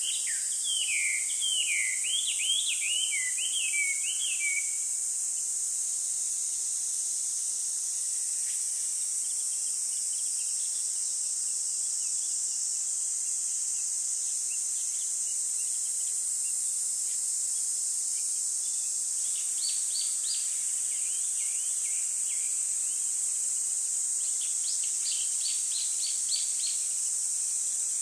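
Small birds chirping in bursts over a steady high hiss. There is a quick run of chirps in the first few seconds, another burst about twenty seconds in, and a series of about eight short notes near the end.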